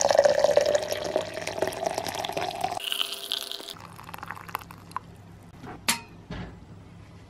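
Water being poured in a stream into a glass tea press onto dried mint leaves. It stops about three seconds in, followed by a few faint drips and a sharp glass clink near six seconds.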